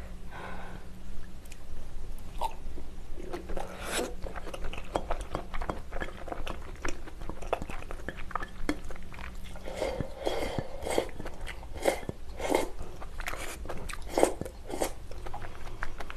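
Close-miked chewing of braised kimchi stew with pork, glass noodles and bean sprouts: many small wet mouth clicks and soft crunches, with a louder run of bites about ten seconds in and a few more near the end.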